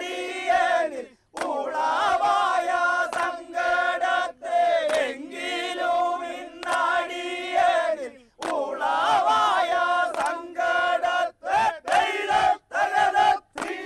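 Many men's voices chanting a snake boat song (vanchipattu) together in loud, rhythmic phrases, cut by a few abrupt short breaks.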